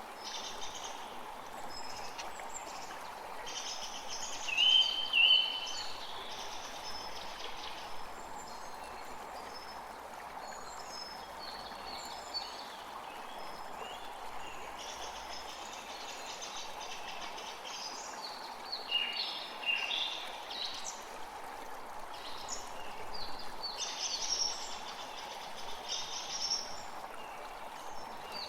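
Small forest creek running steadily, with several songbirds chirping over it; the loudest is a pair of short chirps about five seconds in, and there are busier bursts of chirping later on.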